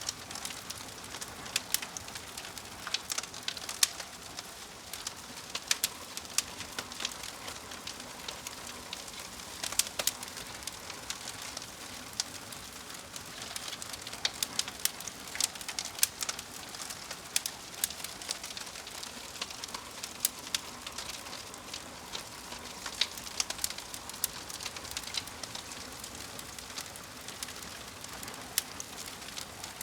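Wood fire crackling, with a steady soft hiss and frequent irregular sharp pops and snaps.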